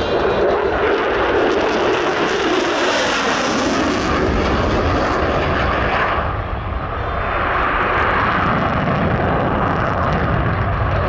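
F-16 Fighting Falcon jet flying by: a loud, continuous jet roar that shifts in pitch as it passes, easing briefly about six seconds in and then swelling again.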